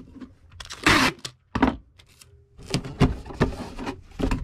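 Packing tape pulled off the roll in a short rip about a second in, followed by scraping and knocking as a cardboard shipping box is handled and taped together.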